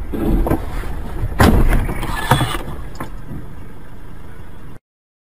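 Car swerving off a snowy road into a roadside snowbank: loud rushing bursts and thuds of snow against the car over a low road rumble, loudest about a second and a half in, with another sharp hit shortly after. The sound cuts off suddenly near the end.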